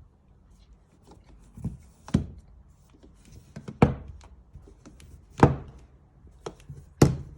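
A series of sharp knocks, irregularly spaced, the four loudest about a second and a half apart, with fainter ones between.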